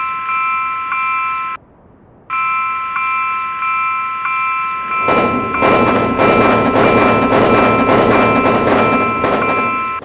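Railroad crossing warning bell ringing in a steady, repeated ding-ding, with a short break about one and a half seconds in. From about halfway a train runs through the crossing, its loud clattering noise over the bell, until both stop near the end.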